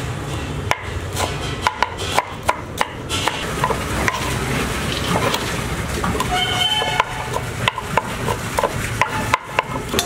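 Knife chopping fried chicken pieces on a wooden board: irregular sharp knocks, several a second in places, over steady background noise. A short pitched tone sounds about six and a half seconds in.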